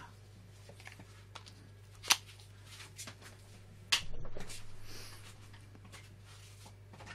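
Power cable being handled and plugged in: small clicks and two sharp clicks, about two and four seconds in, the second followed by about a second of rustling, over a faint steady low hum.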